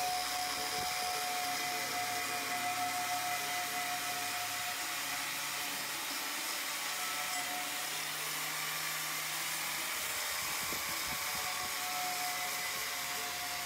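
Handheld angle grinder running steadily with a wire cup wheel, scrubbing the surface of a cast iron brake drum to prepare it for welding. A steady motor whine over a hiss, the whine weakening for several seconds in the middle.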